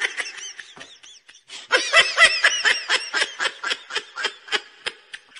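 High-pitched laughter in quick, short pulses: a brief run at the start, then after a pause a longer burst about two seconds in that slows down and fades out near the end.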